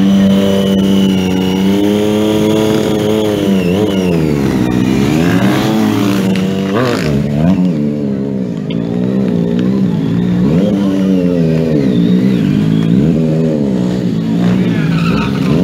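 Stunt motorcycle engine held at a steady high rev for a few seconds, then revved up and down over and over, about once a second or so, as the rider throttles through stunt riding.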